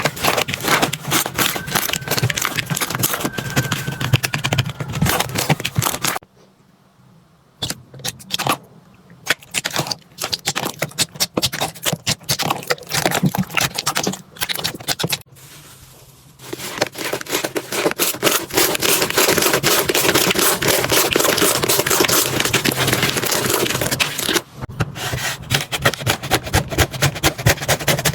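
Slime being squeezed, poked and stretched by hand, making dense sticky clicks, pops and crackles. The sound drops away almost completely about six seconds in and again about fifteen seconds in, then returns denser.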